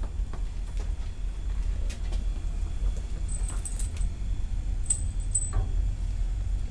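A few light metallic clinks and ticks from a galvanized steel pipe handrail and its fittings being handled and set against a concrete wall, mostly in two small clusters in the middle, over a steady low rumble.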